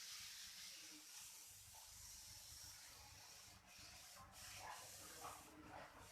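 Near silence: a faint steady hiss of room tone, with a few soft, indistinct sounds.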